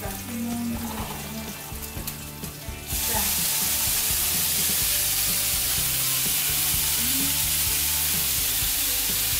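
Garlic frying gently in oil in a hot pan, then about three seconds in morning glory (water spinach) goes into the pan and a loud, steady sizzle takes over.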